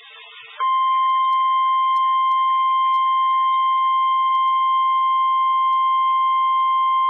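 NOAA Weather Radio warning alarm tone: one steady, unbroken electronic tone that comes on about half a second in and holds. It is the attention signal sounded before a warning message is read, here a tornado warning.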